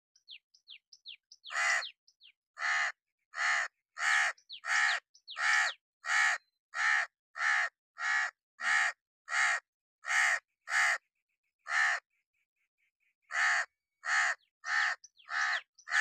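A crow cawing from its perch in a long, steady series of harsh caws, roughly three every two seconds. The series stops for about a second and a half near the end, then starts again. A few faint, thin, falling squeaks come before the first caw.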